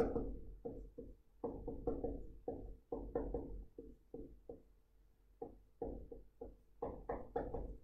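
Irregular light taps and knocks, about two or three a second and closer together near the end, from writing on a hard surface.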